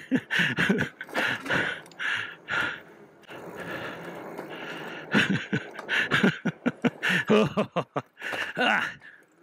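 A rider breathing hard in short, irregular gasps close to the microphone. Knocks and rattles come through as the e-bike bounces over rough trail.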